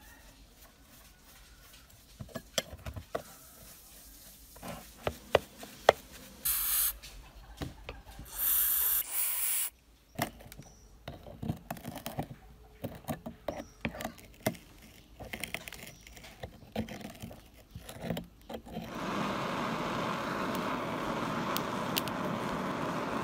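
Hand tools scraping and clicking against a rusty metal alarm clock case, with two short hissing bursts a little over a quarter of the way in. About three-quarters of the way in, a gas blowtorch starts up and its flame hisses steadily to the end.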